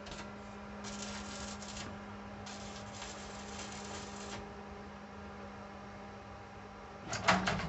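Steady low hum with two stretches of scraping and rubbing as hands work over the metal lid, then a few sharp clicks and knocks of tools being handled near the end.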